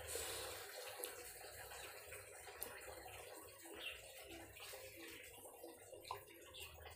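Faint wet eating sounds: red dragon fruit flesh being cut with a knife and chewed, with a few soft clicks.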